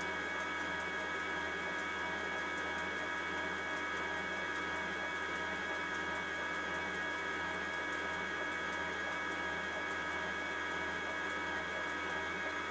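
Electric mixer running steadily at constant speed with an even motor whine, beating egg whites and sugar into meringue.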